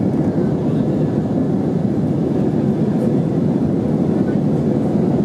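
Steady low rumble of an Airbus A319's engines and airflow heard inside the cabin in flight, even and unbroken.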